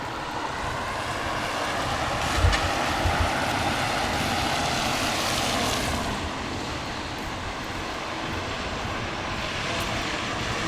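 A vehicle driving past on a wet road: its tyre hiss swells to a peak about halfway through and then fades, with a couple of dull low thumps early on.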